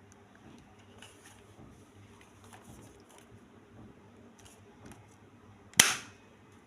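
A single sharp shot from a Beretta M9A3 replica pistol, near the end, with a brief ring-off; faint clicks of handling the pistol come before it.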